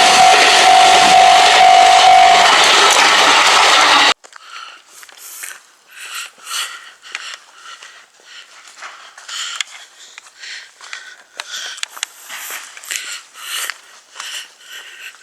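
Train rumbling over a level crossing, loud, with the crossing's warning bell ringing a steady tone until about two and a half seconds in. The sound cuts off abruptly about four seconds in, leaving only faint scattered clicks and rustles.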